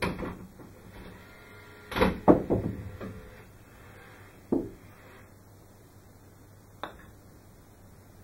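A golf ball being set down and settled against a putter, heard as a few knocks with the loudest cluster about two seconds in, then a single putter stroke knocking the ball away about four and a half seconds in, and a faint click later.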